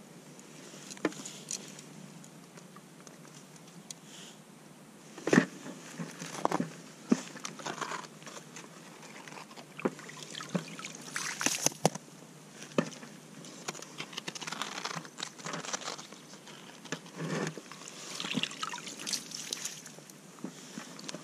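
Slush skimmer scooping in an ice-fishing hole, with water trickling and splashing back into the hole. Scattered knocks and taps from handling gear on the ice, the sharpest about five seconds in and again around eleven to twelve seconds.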